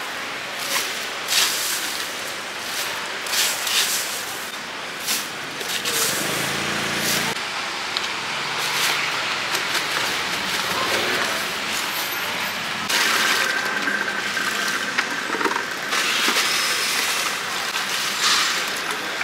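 Wok stir-frying at a street-food stall: a steady sizzle with repeated sharp metal clinks and scrapes of the spatula. A brief low hum, like a passing engine, comes about six seconds in.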